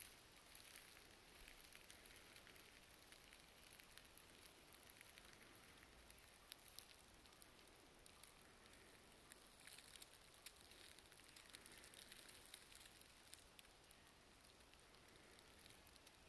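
Near silence with faint, irregular crackling of footsteps on dry leaf litter on the forest floor.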